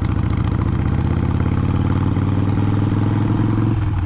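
Harley-Davidson Sportster's air-cooled V-twin, bored out to 1275 cc, running steadily at low revs under way during its break-in ride. There is a short break in the note near the end.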